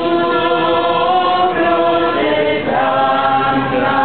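A group of processing pilgrims singing a devotional hymn without accompaniment, in long held notes that shift in pitch every second or so.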